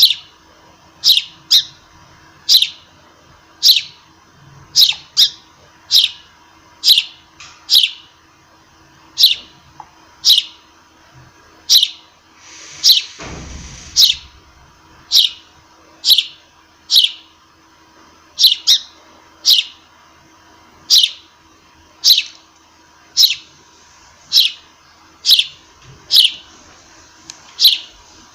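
A sparrow chirping over and over, single short chirps about once a second, each a quick downward sweep. A brief rushing noise sounds about halfway through.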